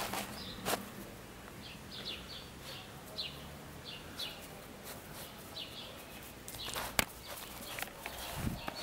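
A small bird chirping over and over, short high notes every half second or so, with a sharp click about seven seconds in.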